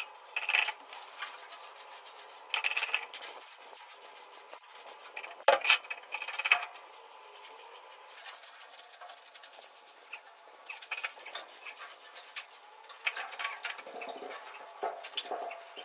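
Paint roller on a long pole rolling and rubbing over a rough concrete wall in intermittent strokes, with two sharp knocks about five and six seconds in.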